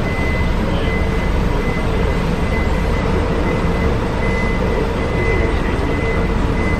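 Steady engine and road noise inside the cabin of an airport apron bus driving slowly across the apron, with a thin steady whine over it.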